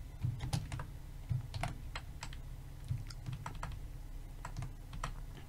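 Computer keyboard being typed on: irregular key clicks, a few a second, over a steady low hum.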